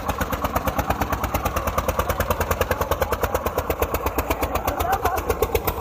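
Old Eicher tractor's diesel engine chugging steadily as the tractor is driven, with an even, rapid exhaust beat of about a dozen pulses a second.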